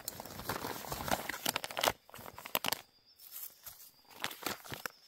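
Crinkling and tearing of a camp-meal food pouch being handled and torn open. There is a dense run of crackles for about the first two seconds, then scattered crinkles.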